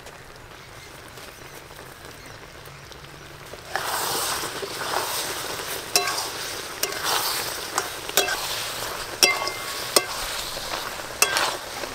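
Kul (jujube) pickle in jaggery syrup sizzling in a metal pan on the fire, getting louder about four seconds in, while a metal spatula stirs it and clinks against the pan about six times.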